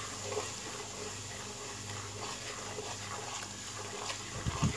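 Semolina roasting in ghee on a low flame, sizzling faintly while a silicone spatula stirs it around the pan. A short low thump about four and a half seconds in.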